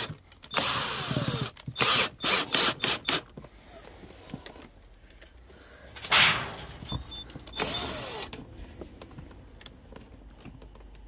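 Cordless drill-driver driving screws into a fitting in a series of short runs: one of about a second near the start, several quick trigger pulses about two seconds in, and two more brief runs near the middle.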